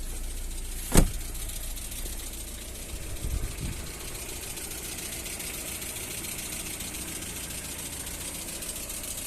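Lada Kalina 2's VAZ-21127 1.6-litre 16-valve four-cylinder idling with a fast, even ticking from the hydraulic valve lifters, a sign that they are not keeping up; the ticking eases as the engine warms. A sharp knock about a second in.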